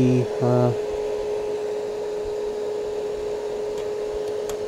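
DynaRock Party Scan DMX scanner running, its cooling fan blowing steadily under a constant mid-pitched hum.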